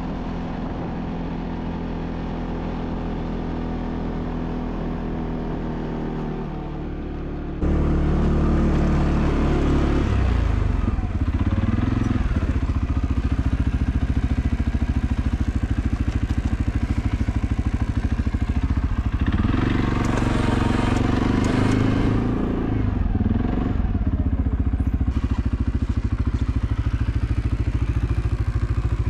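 ATV engine running under load while plowing snow. It gets suddenly louder about seven and a half seconds in, and the revs rise and fall twice.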